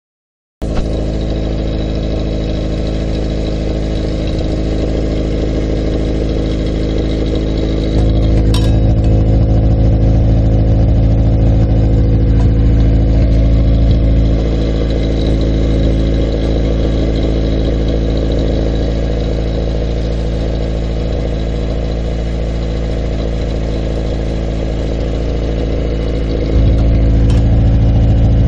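LADA 2107's four-cylinder engine idling steadily through a 60 mm aftermarket exhaust with a removable silencer insert in the tailpipe. The exhaust note turns louder and deeper about eight seconds in, with a short clink, drops back about halfway through, and turns louder and deeper again near the end, as the insert is taken out and put back.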